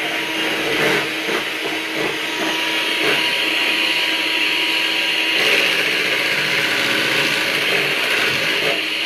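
Handheld electric mixer running steadily with a constant whine, its beaters whirring through a creamy pudding filling in a stainless steel bowl.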